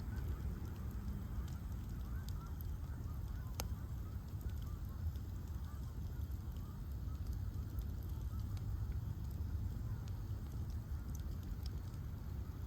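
Bonfire of ash logs burning: a steady low roar of flames with sparse sharp crackles and pops, one louder pop about three and a half seconds in. Many faint short chirping calls sound in the background through the first half.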